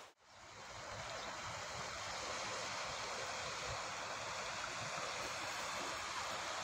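Steady wash of gentle sea waves breaking on the shore. It fades in after a brief dropout to silence at the very start.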